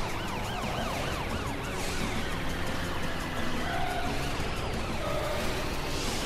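Cartoon police car siren: a fast warbling yelp for about the first two seconds, then a slow wail that rises and falls, over background music.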